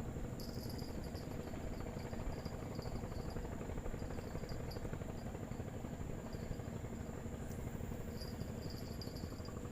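Insects chirping in on-and-off trills over a steady high-pitched insect drone, with a steady low rumble underneath.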